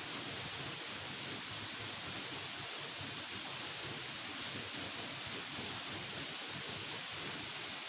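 Waterfall: water rushing in an even, unbroken hiss at a steady level.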